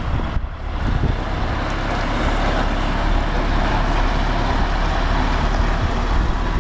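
DAF XF diesel tractor unit driving past, hauling a heavily loaded low-loader trailer. The engine runs steadily under the tyre and road noise.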